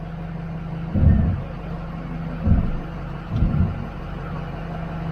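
Motorhome engine idling steadily with a low hum, heard from inside the cab. Three short, low, muffled bumps come about a second apart.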